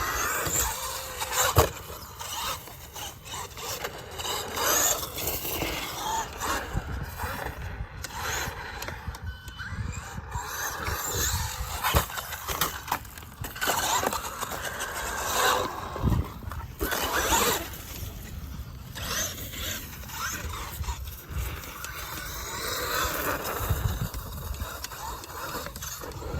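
Radio-controlled car running and driving: uneven, gritty mechanical noise that rises and falls, with scraping and several sharp knocks.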